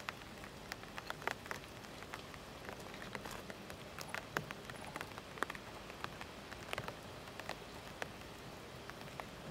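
Steady outdoor hiss dotted with scattered, irregular light clicks and ticks, like small things tapping or crackling.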